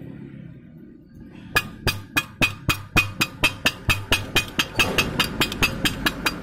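Chipping hammer rapping on a fresh weld bead on steel square tubing, knocking the slag off: sharp metallic taps about four a second, starting about a second and a half in, over a low steady hum.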